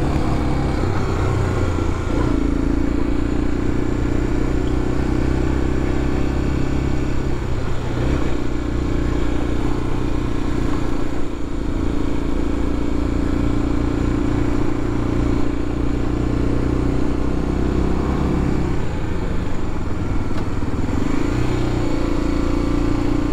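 BMW F700GS motorcycle's parallel-twin engine running steadily under load as the bike pulls uphill on a rough road, the engine note dipping and returning a few times.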